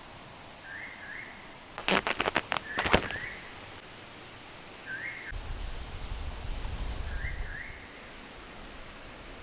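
A bird calling over and over in short rising two-note phrases, with a couple of faint high chirps near the end. About two seconds in there is a quick run of sharp clicks or knocks, the loudest sound here. In the second half a low rumble comes in.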